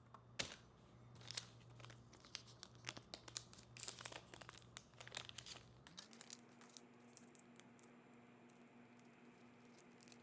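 Faint crinkling and light clicking of plastic as small drone propellers and their packaging are handled, busy for about six seconds and then sparse, over a low steady hum that steps up in pitch about six seconds in.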